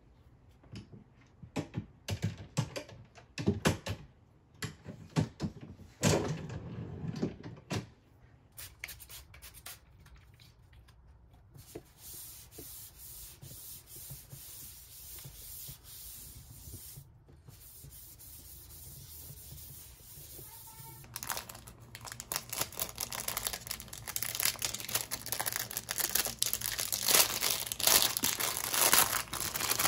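A few sharp knocks and taps in the first seconds. Then a hand wipes the white IKEA MICKE desktop with a cloth, a steady soft rubbing. From about two-thirds of the way in comes a loud, continuous crinkling of a clear plastic bag as a cable organizer is unwrapped.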